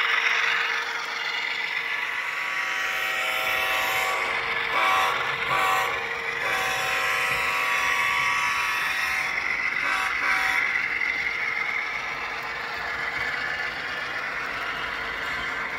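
HO scale model train running: a CSX diesel locomotive model pulling covered hopper cars along the track, with a steady hum and a rolling hiss that change briefly around five and ten seconds in.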